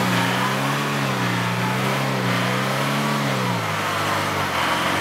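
A motor vehicle engine running steadily, its pitch wavering slightly and dipping about three and a half seconds in.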